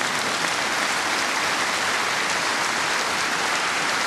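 Audience applauding: steady, dense clapping from a large crowd, in response to a joke in a speech.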